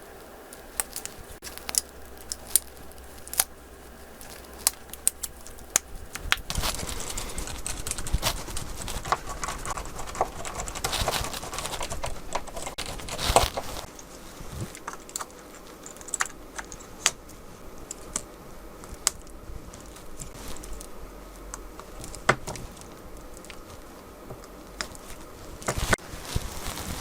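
Irregular small clicks and taps of hand tools and parts being handled on a smartphone under repair. About a quarter of the way in comes a louder stretch of handling noise that ends in a sharp click.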